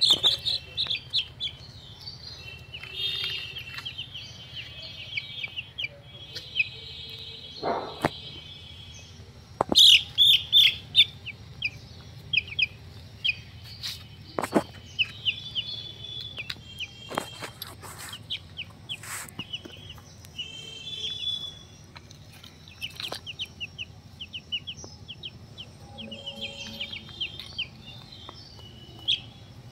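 Small birds chirping in quick runs of short, high peeps throughout, with a few sharp clicks and taps in between.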